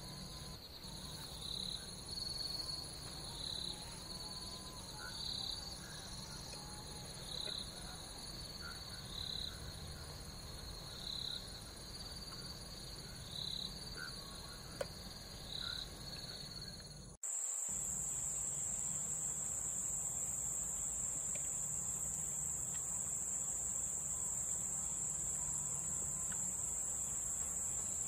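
Crickets and other insects trilling steadily at several high pitches, with a shorter pulsed call repeating about every two seconds. About seventeen seconds in, the sound cuts abruptly to one louder, steady high trill.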